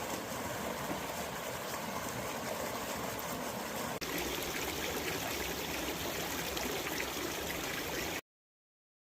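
Small creek waterfall, water pouring and splashing steadily. The sound breaks briefly about four seconds in and cuts off suddenly about eight seconds in.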